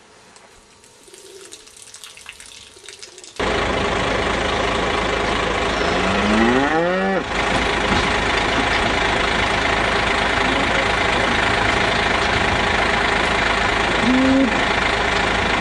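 Beef cattle mooing: one long moo that rises and then falls about halfway through, and a shorter moo near the end. Both are heard over a steady loud noise that starts suddenly a few seconds in.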